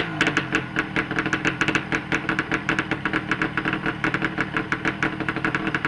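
1929 Scott TT Replica's two-stroke twin engine, freshly rebuilt top end, running steadily at idle just after catching on the kick start, with a quick, even beat of firing pulses.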